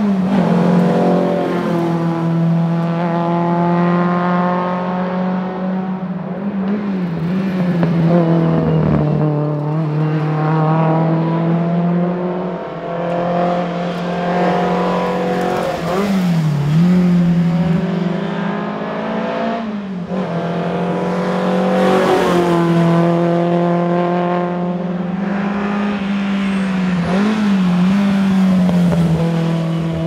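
Alfa Romeo GTV 2000's twin-cam four-cylinder engine driven hard, its pitch climbing and dropping again and again as the car accelerates and comes off the throttle through the bends.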